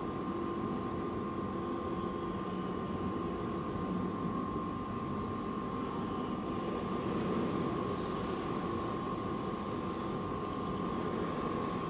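Hydraulic hose crimping machine running while its dies press a fitting onto a hydraulic hose: a steady whine over a low hum, with no knocks.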